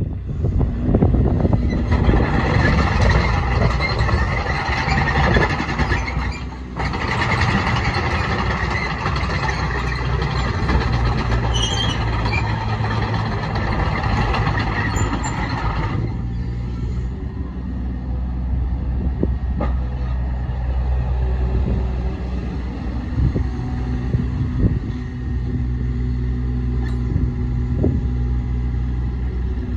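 Bobcat E27Z mini excavator's Kubota diesel engine running. For about the first sixteen seconds it is louder with a harsh hiss over the engine note, then it drops suddenly to a quieter, steady low run with a few light knocks.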